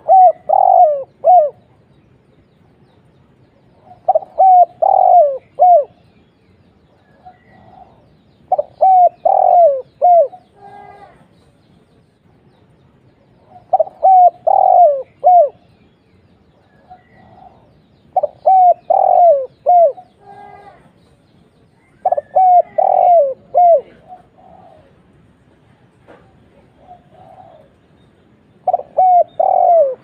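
Spotted dove cooing: phrases of three to five short coos, each note dropping in pitch, repeated about every four to five seconds, seven times over.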